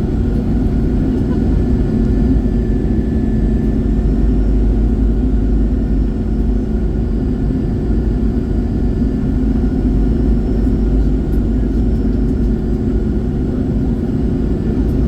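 Steady cabin drone of an Airbus A321-111 heard from a window seat: its CFM56 engines and the airflow make a constant low rumble with a steady hum over it, unchanging throughout.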